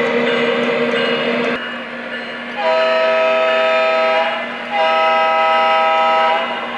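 Onboard sound system of a Lionel Vision Line Norfolk Southern genset model locomotive: the diesel engine sound running, then two long air-horn blasts, each a held chord of several tones lasting about a second and a half.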